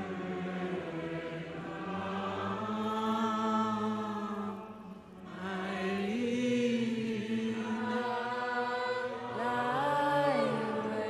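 Film score music: a wordless vocal chant held on long notes over a low drone, gliding to a new note a couple of times, with a brief dip in loudness about halfway.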